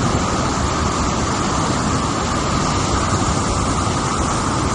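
Flash-flood torrent of muddy water rushing over rocks: a loud, steady rushing noise with no break.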